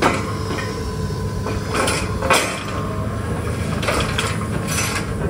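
Borewell drilling rig's engine running with a steady low drone, while about half a dozen sharp metal clanks ring out as the crew handles the drill rods and tools at the rig head; the loudest clank comes a little after two seconds in.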